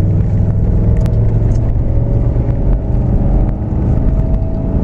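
Engine and tyre noise inside a vehicle's cab while driving on an unpaved road: a steady low rumble with an even engine hum and a few brief clicks.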